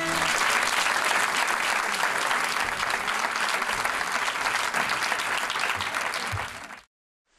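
Audience applauding steadily at the end of a scene; the applause cuts off suddenly near the end.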